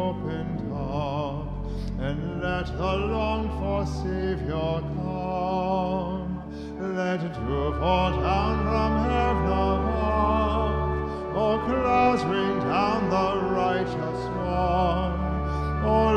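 Entrance hymn sung with vibrato over pipe organ, the organ's low bass notes held steady and breaking off briefly about seven seconds in.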